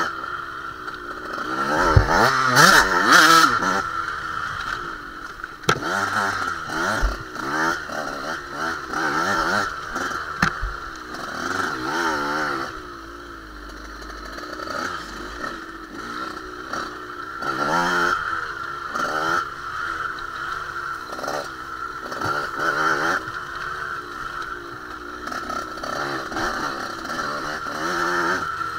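Enduro motorbike engine revving up and down as it is ridden over a dirt trail, its pitch rising and falling with each throttle change. It eases off briefly about halfway through.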